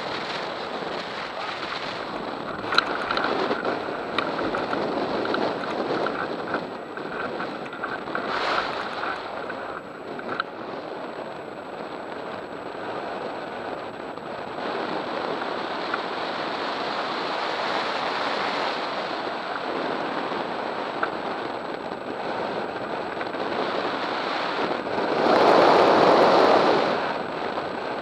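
Wind rushing over the microphone of a camera mounted on a hang glider as it launches and flies, a steady rush of air that swells loudly for about two seconds near the end. A single sharp tap about three seconds in.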